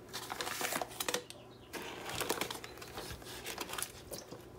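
Crinkling and clicking of a plastic vacuum-seal bag of frozen pork chops as it is handled and pushed down into a pot of water, in two spells with a short lull about a second and a half in.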